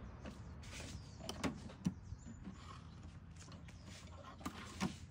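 Steel drawers of a Kennedy machinist's tool chest sliding open and shut, with a few short metal knocks and clicks, about a second in and again near the end.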